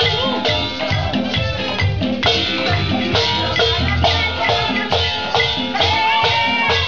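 Latin dance music with maracas and percussion over a steady beat.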